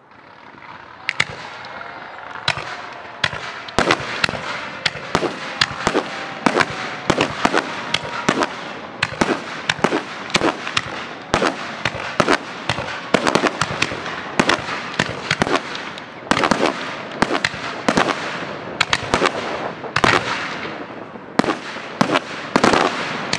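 A barrage of aerial fireworks launched from the ground, firing and bursting in rapid succession: sharp bangs, a couple or more each second, over a continuous hiss. Faint whistling tones run through the first several seconds.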